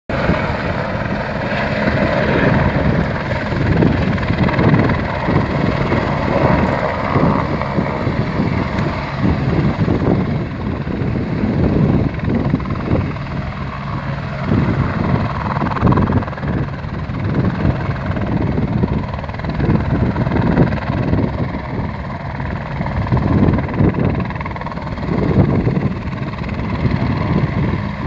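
Light helicopter's rotor and engine running loud and steady as it flies in, hovers low and sets down, the low end pulsing unevenly throughout.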